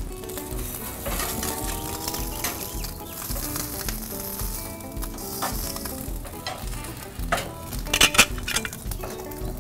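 Ribeye steak sizzling on the grate under the glowing burners of a gas infrared broiler as it is turned with metal tongs. A cluster of sharp clicks about eight seconds in is the loudest sound.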